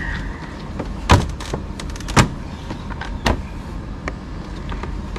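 Hard plastic clicks and knocks as the Tata Altroz's plastic top cover panel over the headlamp is flexed and pried up by hand, with three louder knocks about a second apart and smaller ticks between.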